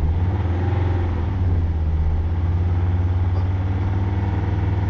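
Volvo car engine brought up from idle at the start and held at a steady raised speed, around 2,500 rpm, so that a battery tester can check the alternator's charging output and ripple.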